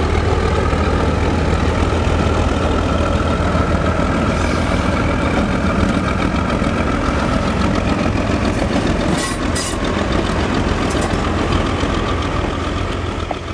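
Virginia & Truckee D-1 diesel locomotive running as it pulls slowly past, its engine a steady low drone, followed by passenger coaches rolling by on the rails. The sound fades toward the end.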